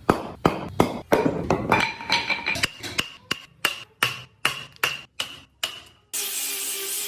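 Mallet striking a carving chisel in wood in an even rhythm of about three blows a second, some blows with a short metallic ring. About six seconds in the blows stop and a steady hissing noise starts.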